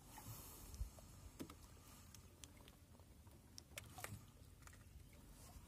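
Near silence: faint background noise with a few soft clicks, about a second in, again shortly after, and once near four seconds.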